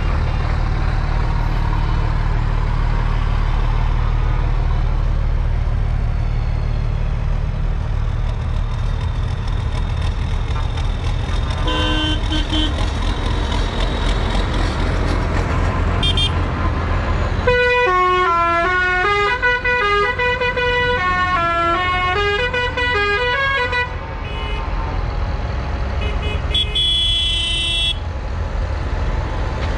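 Tractor engines running with a deep, steady rumble, and a short horn toot about twelve seconds in. Then, for several seconds, a tune of single stepped notes plays, like a musical horn. A bright horn blast comes near the end.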